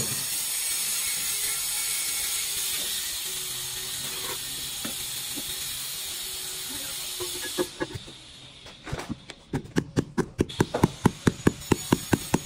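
A steady hiss for the first seven or eight seconds. Then, from about nine seconds in, a rubber mallet taps a marble slab down into its mortar bed in quick, even knocks, about four a second.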